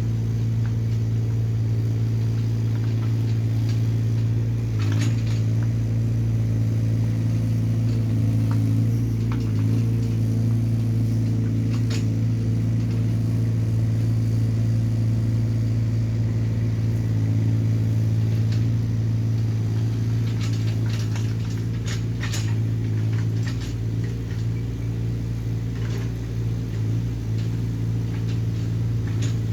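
Small Hyundai excavator's diesel engine running steadily with a constant low hum. A few short sharp knocks come through, one about five seconds in, one near the middle and a cluster in the last third.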